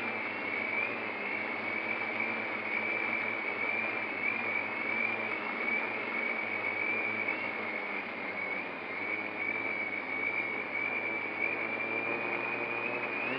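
3D-printed F450 quadcopter's motors and propellers whining steadily in flight over a broad rushing noise, the pitch wavering slightly up and down.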